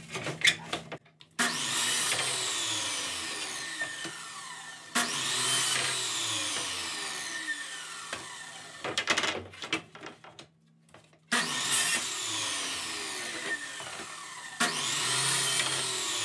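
Sliding compound miter saw cross-cutting 1x4 boards: the motor starts with a jump, the blade cuts through the wood, and a falling whine follows as it winds down, in two bouts. Sharp knocks of boards being handled fill the short pause between bouts.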